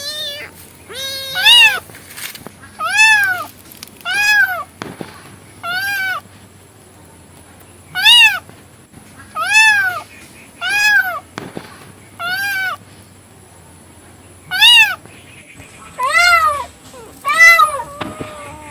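A cat meowing repeatedly: about a dozen short, loud meows, each rising and then falling in pitch, a second or two apart.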